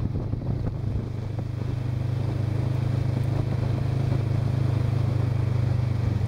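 Motorcycle engine running steadily under way, a low, even note that grows a little louder about a second and a half in.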